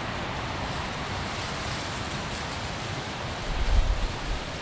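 Steady wind noise, with a gust buffeting the microphone about three and a half seconds in as a loud low rumble lasting under a second.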